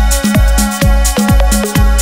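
Electronic dance background music with a steady kick-drum beat, about two beats a second, and hi-hat cymbals over sustained synth tones.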